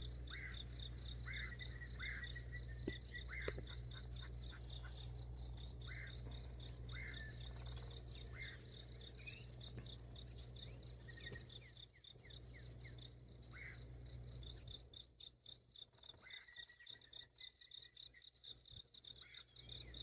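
Outdoor insect chorus: a steady, fast-pulsing high trill throughout, with scattered short bird chirps. A low rumble underneath drops away about fifteen seconds in.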